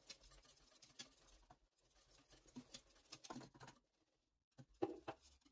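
Faint, scattered light ticks and scrapes of a wire whisk against a stainless steel pot of water as cornmeal is whisked in, with a few slightly louder clicks near the end.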